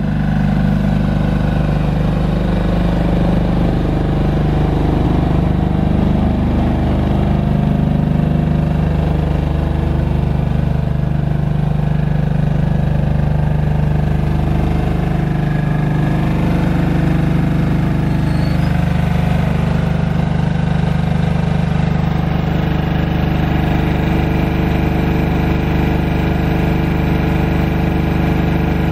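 Kohler diesel engine of a TowerLight VB-9 light tower running steadily, driving its generator under the load of the four lit metal-halide lamps.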